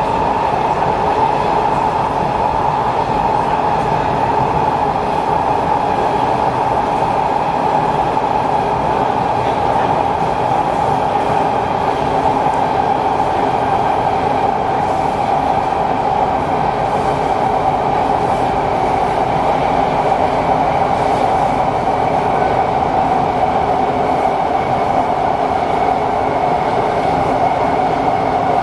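Kawasaki C751B metro train running at speed, heard from inside the passenger car: a steady drone of wheels and motors that sinks slightly in pitch near the end.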